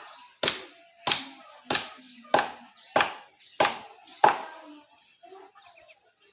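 Seven evenly spaced chopping blows of a blade into a coconut palm trunk, about a blow and a half per second, stopping a little after four seconds in.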